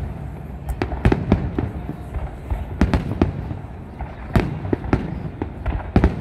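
Aerial firework shells bursting in quick, irregular succession: a string of sharp booms and cracks over a continuous low rumble, with the loudest bursts a little past four seconds in and again near the end.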